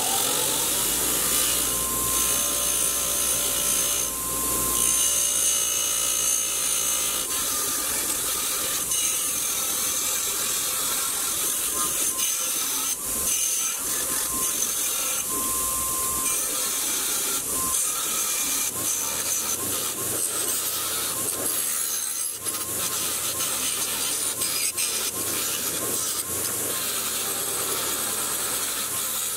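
Power tool running, with a steady scratchy rubbing as a metal part is worked against it. A motor whine levels into a steady tone for the first few seconds.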